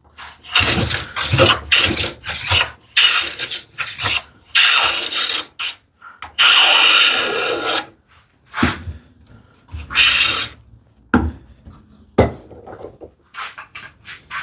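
Hand plane taking shavings off a wooden board edge in a series of strokes, each a hiss of about half a second to a second and a half, with the last few strokes shorter.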